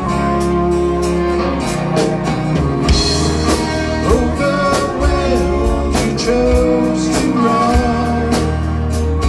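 Rock band music: strummed guitars over drums and cymbals, with a melodic line that bends in pitch.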